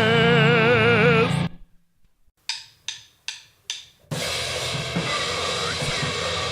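A held, wavering vocal note over music stops about a second and a half in. After a short silence, four evenly spaced drumstick clicks count in, and the full band starts about four seconds in: drum kit and cymbals with a dense wall of noisecore distortion.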